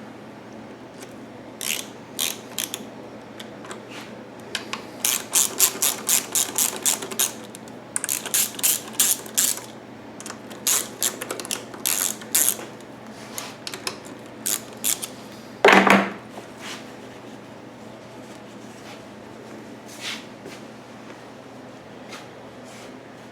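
Hand ratchet clicking in quick runs as screws are driven in, with scattered single clicks between the runs and one louder clunk about two-thirds of the way through.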